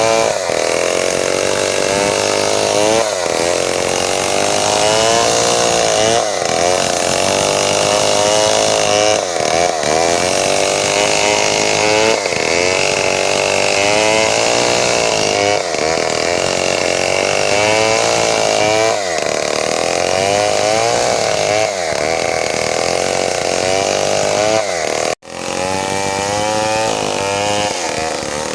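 Two-stroke chainsaw running at high revs while cutting wood, its engine pitch sagging and climbing back roughly every three seconds. The sound cuts out sharply for a moment a little before the end.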